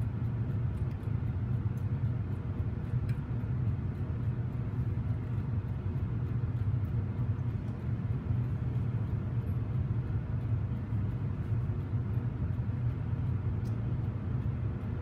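Centrifugal casting machine spinning its arm, flask and counterweight inside a steel drum: a steady low rumble that does not change.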